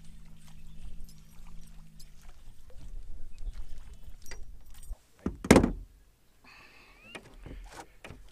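A chain pickerel being landed by hand in a small boat: scattered knocks and handling noises, with one loud thump about five and a half seconds in. A low steady hum runs underneath for the first two seconds, then stops.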